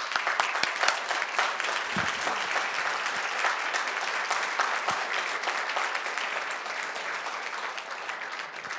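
A large audience applauding, many hands clapping steadily, thinning out near the end.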